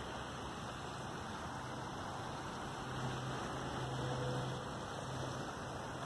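Steady hiss of a shallow creek's flowing water, with a faint steady low hum underneath.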